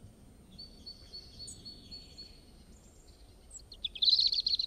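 Birds singing over a faint low background rumble: a run of evenly repeated high chirps, then louder, rapid chirping from about four seconds in.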